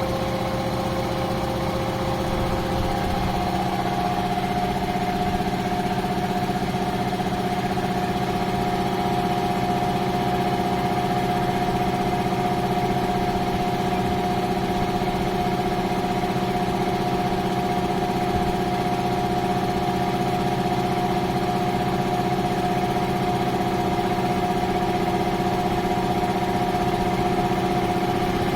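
JSI air compressor running steadily with a constant mechanical hum; its tone shifts slightly about three seconds in, then holds.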